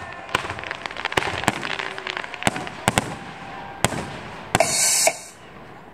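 Fireworks going off: a quick, irregular series of sharp bangs and crackles from bursting shells. About four and a half seconds in, a loud hissing rush comes in and cuts off suddenly half a second later, after which the display goes quieter.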